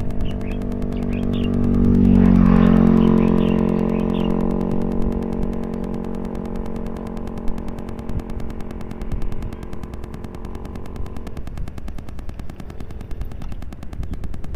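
A motor vehicle's engine passing on the adjacent road. The hum swells to its loudest about two seconds in, drops slightly in pitch as it goes by, then fades away over the following several seconds.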